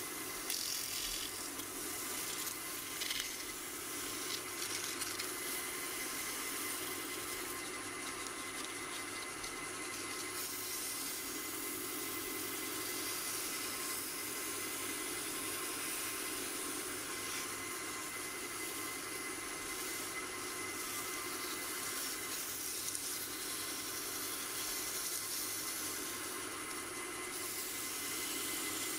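Wood lathe running steadily with 320-grit sandpaper held against the spinning yew vase: a continuous, even sanding hiss over the steady tone of the lathe.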